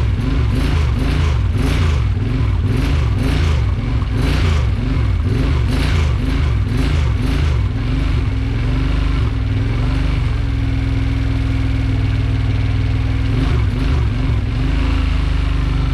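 2008 Kawasaki Brute Force 750's V-twin engine running rough after a rebuild, its speed rising and falling about twice a second for the first half, then settling into a steadier idle. The owner blames the rough running on a faulty ignition.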